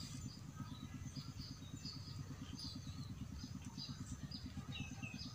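Small birds chirping: short, high calls repeating every half second or so, a few gliding downward. Underneath them runs a low, fast, even pulsing hum like a distant engine running.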